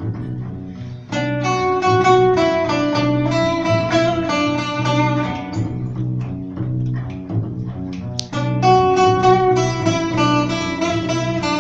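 Acoustic guitar and upright bass playing an instrumental jazz passage without vocals: guitar chords and melodic lines over a repeating low bass figure, with fresh guitar phrases starting about a second in and again about eight seconds in.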